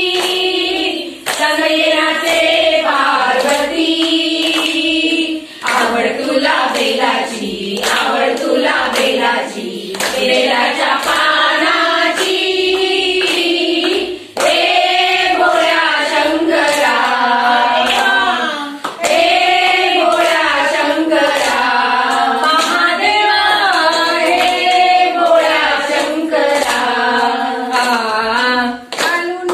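A group of women singing a devotional bhajan together, with hand-clapping keeping a steady beat.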